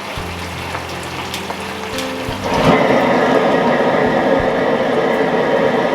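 A low steady hum, then about two and a half seconds in a loud, rain-like rush of spraying water starts suddenly, with a steady mechanical whine in it, from the poultry scalding and plucking equipment.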